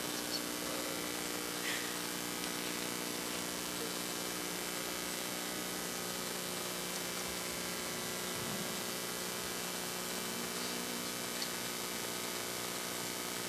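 Steady electrical mains hum and buzz with background hiss, from the sound system's audio feed, running unchanged.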